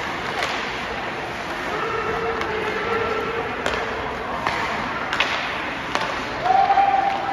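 Ice hockey game sound in an arena: a steady wash of skates on ice, with several sharp clacks of sticks and puck. Voices call out twice, once for about a second and once more loudly near the end.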